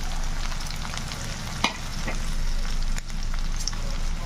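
Chopped onion frying in hot mustard oil in a kadhai, a steady sizzle with a few sharp clicks.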